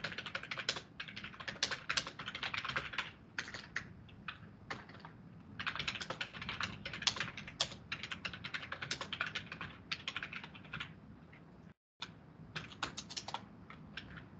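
Typing on a computer keyboard: quick runs of keystrokes in three spells, with short pauses between them.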